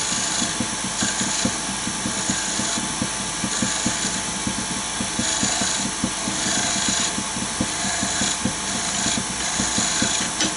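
Wood lathe running with a turning tool taking light finishing cuts on the spinning wood, the high hiss of the cut coming and going in repeated short passes.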